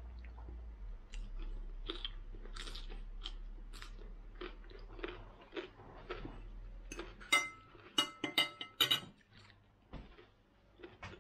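Close-up chewing and crunching of a mouthful of salad with cucumber and lettuce. About seven seconds in, a quick run of sharp clinks with a short ring: a metal fork against a ceramic plate.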